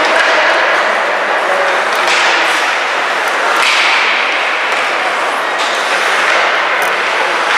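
Ice hockey play in a rink: skates scraping the ice under a steady hall noise, with a few sharp cracks of sticks and puck.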